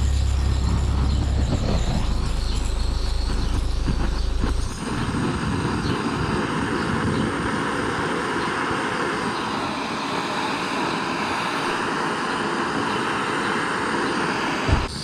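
Gas blowtorch running steadily, heating the outboard's flywheel to help free it. A deep rumble drops away about five seconds in, leaving a steady hiss.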